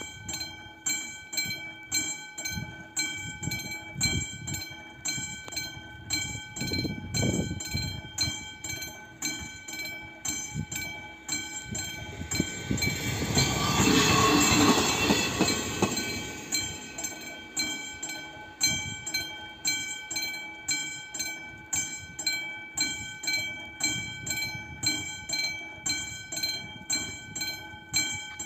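Level-crossing warning bell ringing in a fast, regular beat, about one and a half strikes a second. A ČD Class 814 RegioNova diesel railcar passes over the crossing about halfway through, its rumble and wheel noise swelling to the loudest point and then fading while the bell keeps ringing.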